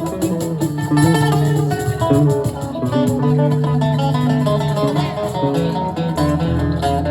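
Live band music: an electric or acoustic guitar picks a fast run of notes, and a low bass part comes in near the end.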